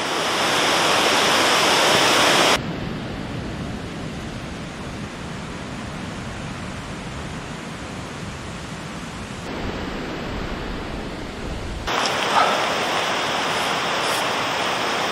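Steady rushing noise of wind and rain, with abrupt changes in loudness and tone about two and a half seconds in and again near the end.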